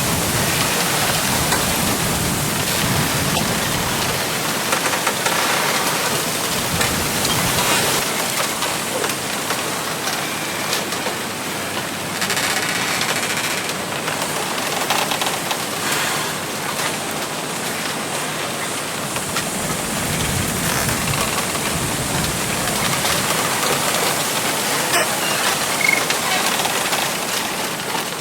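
Wind gusting through a bamboo grove: a dense, rising and falling rustle of the leaves and stems.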